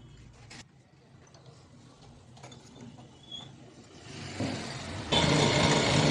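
A few faint clicks and knocks, then a power tool starts up about five seconds in and runs loud and steady.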